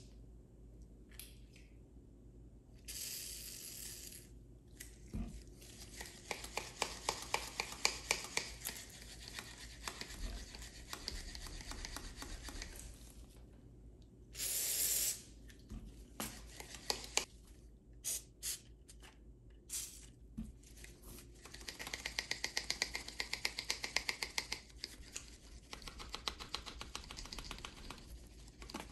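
WD-40 sprayed in two short hissing bursts, about three seconds in and again about halfway through. Between them come long runs of quick, regular clicking as new Milwaukee 9-inch lineman's pliers are worked open and shut, their stiff pivot being lapped loose with valve grinding compound.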